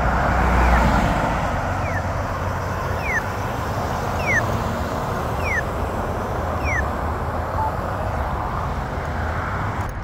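Road traffic passing at an intersection, a steady rumble and hiss, with five short falling chirps about a second apart through the middle.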